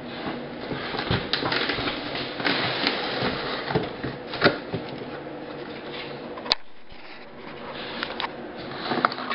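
Cardboard carton being handled and opened: rustling and scraping of the cardboard flaps with irregular clicks and knocks, the loudest knock about halfway through, then a brief quieter spell before more rustling near the end.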